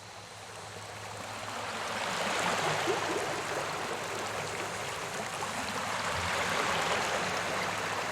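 Rushing water of a waterfall, a steady roar that fades in over the first two seconds or so.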